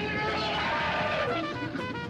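Spooky Halloween music played from a cassette tape: held pitched tones, with one line sliding down in pitch around the middle.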